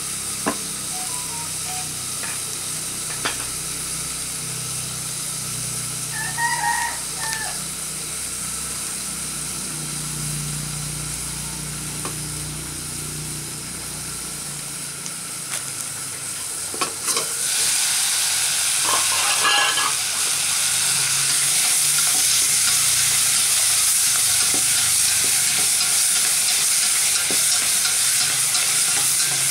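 Wood fire crackling under a cooking pot, with a rooster crowing about six seconds in. About seventeen seconds in, loud sizzling starts as vegetables go into the hot pot and are stirred, and it carries on steadily.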